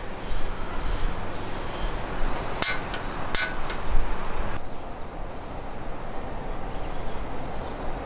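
Gas camp stove burner burning with a steady rushing noise under a rice-cooking pot. Two sharp metallic clinks, about two and a half and three and a half seconds in.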